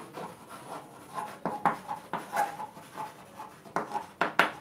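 Chalk writing on a blackboard: irregular taps and short scratching strokes as letters are written.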